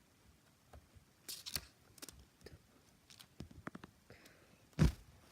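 Close handling noise of a book and a fidget spinner: scattered light clicks and rustles, then one loud thump near the end.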